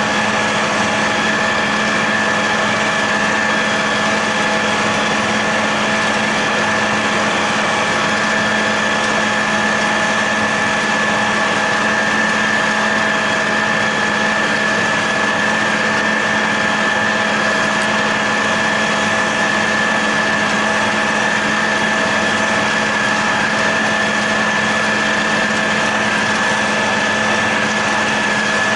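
John Deere 8100 tractor's six-cylinder diesel running steadily under load, driving a John Deere 946 discbine mower-conditioner as it cuts standing hay. A continuous low hum with a steady high whine over it, unchanging throughout.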